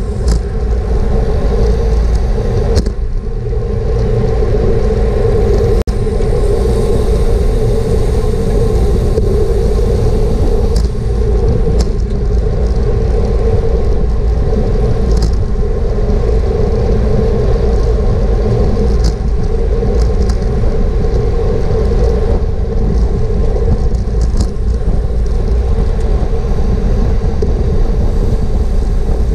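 Loud, steady wind and road rumble on a GoPro riding with a racing bicycle at speed, with a few faint clicks now and then.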